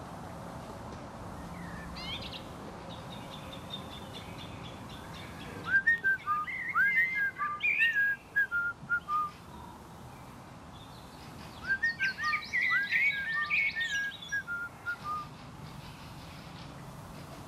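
A songbird singing two phrases of short, fluty whistled notes with higher twittering, about six seconds in and again about twelve seconds in, each led by a fainter high trill, over a steady background hiss.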